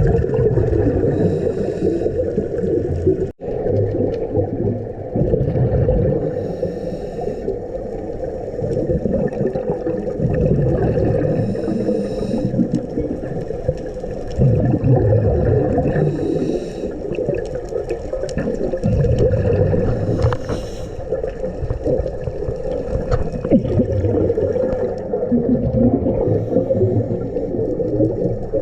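Underwater audio from a diver's camera: a steady, muffled low rumble, with bursts of scuba regulator exhaust bubbles every few seconds.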